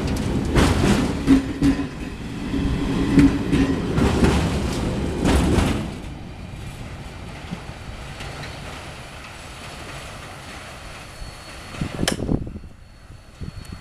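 Railway tank wagons rolling past close by, wheels clacking over the rail joints. The sound drops off sharply about six seconds in as the last wagon moves away down the line, leaving a fainter rumble. There is a single sharp knock near the end.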